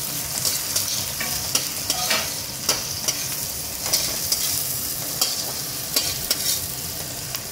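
Diced vegetables sizzling in hot oil in a large metal kadai, with a flat metal spatula scraping and knocking against the pan in irregular strokes about twice a second as they are stir-fried.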